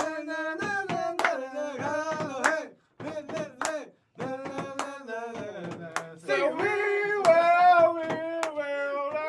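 Voices singing or vocalising in held notes, with sharp claps or clicks cutting in throughout and two brief pauses.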